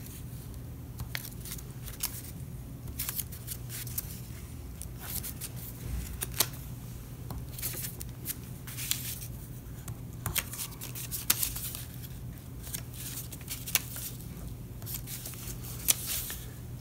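Construction-paper strips being handled and pressed flat on a tabletop while being glued: scattered soft rustles and small taps, over a steady low hum.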